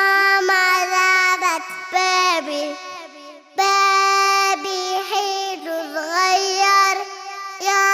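A child's voice singing a children's song, holding long high notes and gliding between them, with backing music. The singing drops away briefly about three seconds in, then comes back.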